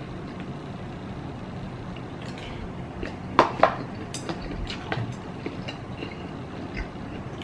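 Chopsticks tapping and clicking against an instant-noodle cup and its food, with two sharper clacks about three and a half seconds in.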